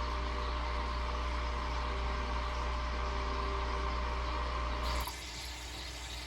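A steady hum with a low rumble and a rushing hiss, like a pump or running water, that cuts off abruptly about five seconds in, leaving a fainter hiss.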